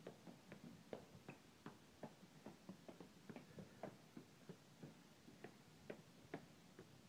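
Footsteps climbing concrete stairs: faint, quick taps of shoes on the steps, about three a second.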